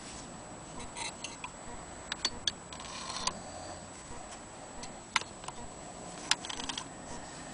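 A few sharp, irregularly spaced clicks and ticks from an antique 1890s sewing machine being handled as fabric is set under its needle, the loudest two about five and six seconds in, over a faint steady hiss.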